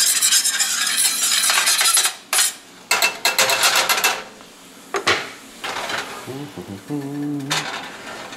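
Metal kitchen tongs scraping and clinking against a stainless steel skillet while stirring a simmering pan sauce. The stirring comes in two dense spells, the first about two seconds and the second about one second, with a few single knocks after.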